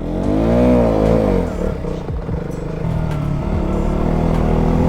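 Motorcycle engine under way, its revs rising and falling in the first second and a half, then running steadier and beginning to climb again near the end.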